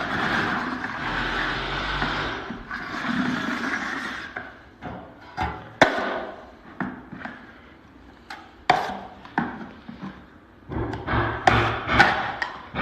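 Rough scraping for about four seconds, then a string of separate sharp knocks and taps, with a low hum joining under quicker knocks near the end.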